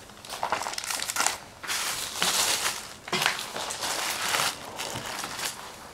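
Rustling and crinkling of bags and belongings being rummaged through, in irregular bursts of a second or so.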